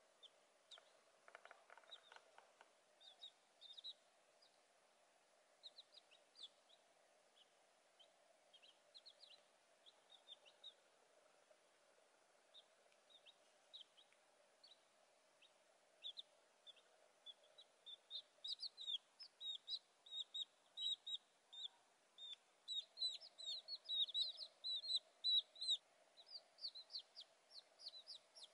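Baby chick peeping: short high cheeps, scattered at first, then coming in quick, dense runs from a little past the middle, over a faint steady background noise.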